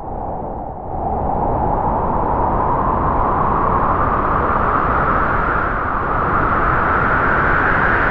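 Spooky Halloween sound effect: a continuous, breathy, howling drone that starts abruptly and slowly rises in pitch.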